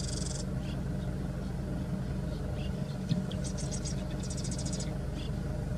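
Steady low hum of an idling vehicle engine, with a swallow's rapid, buzzy, high-pitched twittering at the start and twice more about three and a half and four and a half seconds in.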